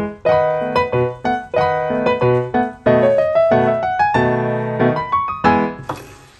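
Background piano music: a melody of struck notes, each ringing and fading, a few notes a second, dying away near the end.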